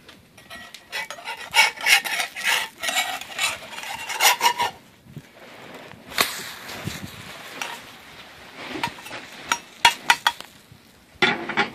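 Metal spatula scraping against a cast iron skillet as it works under a pancake to loosen and flip it. It comes in rough runs of scrapes, with a few sharp clicks of metal on the pan around ten seconds in and again near the end.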